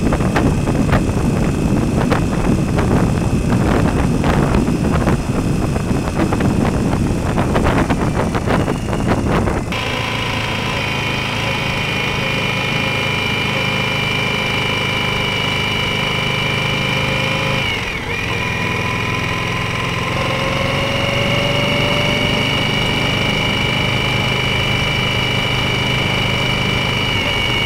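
Indian Scout Bobber V-twin riding sound picked up by the dash cam's microphone. For about the first ten seconds heavy wind buffets a handlebar-mounted microphone and drowns the engine. Then, with the microphone out of the wind, the engine is heard clearly and running steadily, its pitch dipping briefly about two-thirds of the way through and then rising again.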